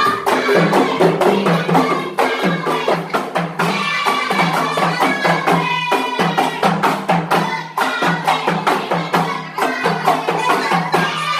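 Traditional gong-and-percussion music: small hand-held brass gongs struck in a fast, steady rhythm over a repeating low two-note pattern.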